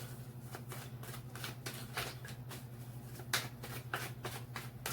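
A tarot deck being shuffled by hand: a quick, uneven run of soft card flicks and slaps.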